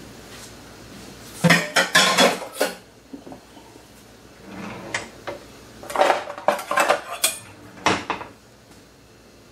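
Kitchen utensils and dishes clattering in two bursts of quick knocks, about a second and a half in and again about six seconds in.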